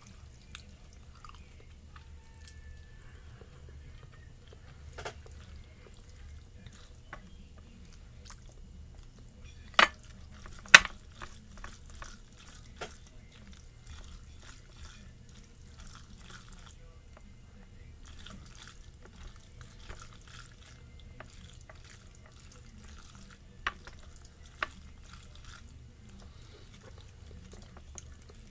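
Close-miked eating sounds: wet chewing and mouth noises of someone eating spicy noodles and pan-fried dumplings, with scattered light clicks and two sharper clicks about ten seconds in.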